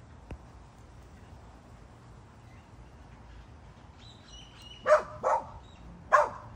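A dog barking three short times near the end, the first two close together and the third about a second later.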